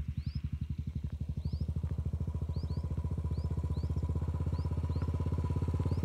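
Royal Enfield motorcycle running toward the listener, its exhaust beat pulsing fast and evenly and growing louder as it approaches. Short rising bird chirps repeat every half second or so above it.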